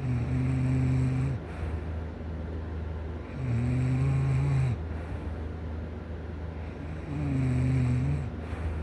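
A sleeping person snoring: three long, low snores, each lasting over a second, about three and a half seconds apart.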